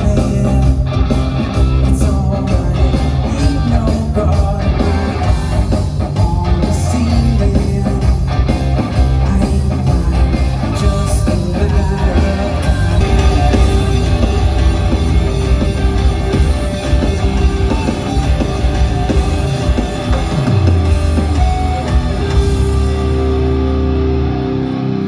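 Rock band playing live through a PA system: electric guitars, bass, drums and vocals, ending on a held chord near the end.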